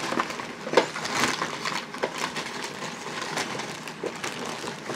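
A bag rustling and crinkling as it is handled, with several sharp clicks and taps mixed in.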